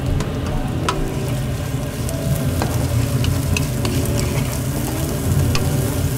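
Diced chicken frying and sizzling in oil in a pan, stirred with a wooden spatula, with a few sharp taps and scrapes of the spatula against the pan.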